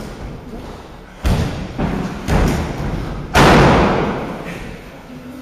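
Heavy thuds on a wrestling ring: three sharp ones in quick succession, then a louder one near the end that echoes and fades slowly.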